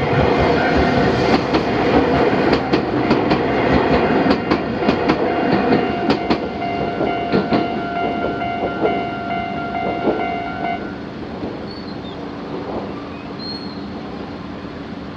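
An Iyotetsu Gunchu Line train runs over a level crossing, its wheels clacking in quick runs over the rail joints, while the crossing's electronic warning alarm sounds a steady tone. The alarm cuts off about eleven seconds in, and the train sound fades away.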